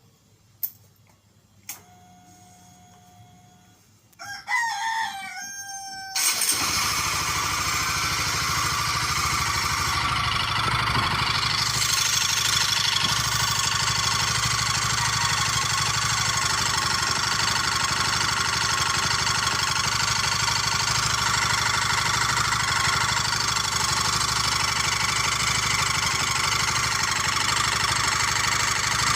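Honda CBR150R K45A's single-cylinder engine starting about six seconds in and then idling steadily, with an odd engine noise that the owner cannot place. Before it come two clicks, a brief steady tone and a rooster crowing.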